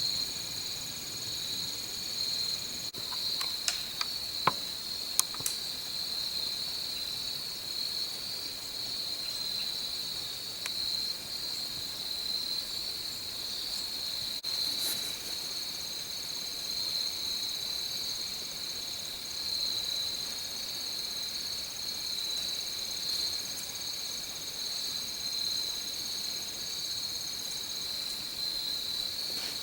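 Steady insect chorus, a continuous high-pitched trill that never breaks, with a few faint clicks a few seconds in.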